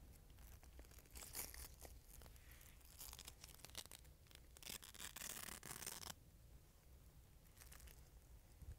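Faint hook-and-loop head straps of a short spinal immobilization device being pulled apart and pressed into place: several short ripping rasps, the longest from about four and a half to six seconds in, among light fabric rustles and ticks.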